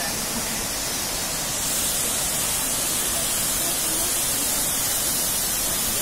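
Steady rushing of Dudhsagar Falls pouring into the pool below. The hiss gets a little brighter and louder about two seconds in.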